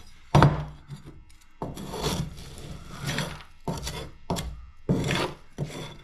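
Scraping and rubbing on a wooden door as a packed leafcutter bee nest is cleared out of a mortise recess: a sharp knock about a third of a second in, then a run of rough scraping strokes.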